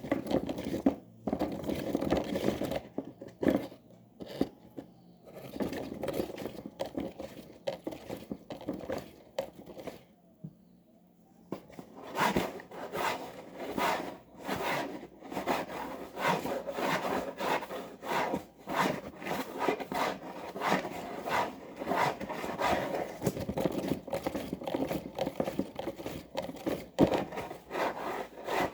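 Washing machine drum tumbling a wet wash load, the laundry swishing and rubbing in repeated strokes. The drum stops for a moment about ten seconds in, then turns again with a quicker run of strokes.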